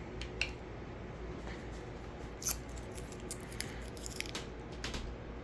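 Scattered light clicks and small knocks of handling, a few at a time, over a faint low hum.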